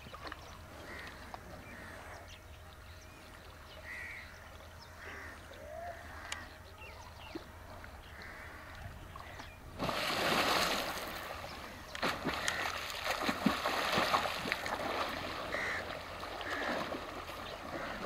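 Water splashing and sloshing as water buffalo bathe in an irrigation canal: a sudden loud splash about halfway through, then uneven surges of splashing to the end. Before it, a low background with a few short bird chirps.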